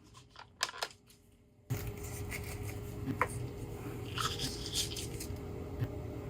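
A few light clicks and taps, then a steady low hum starts abruptly about a second and a half in, with faint scratchy handling ticks over it.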